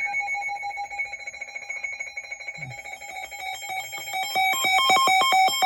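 Weather radio alert tones sounding for an Emergency Alert System flood warning: a steady buzzy electronic tone, then from about four seconds in, rapid beeps alternating between two pitches, about four a second, getting louder.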